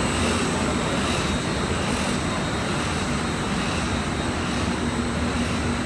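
Paper gravure printing press running: a steady machine drone with a low hum and a thin, high, constant whine over it.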